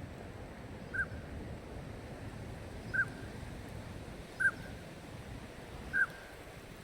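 Drake northern pintail giving four short, clear whistled calls, each dipping slightly in pitch, spaced a second or two apart over a low steady background rumble.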